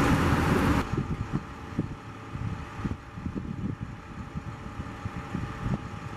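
Truck-mounted crane's engine running, with wind buffeting the microphone. A little under a second in, the sound drops suddenly to a quieter, gusty rumble.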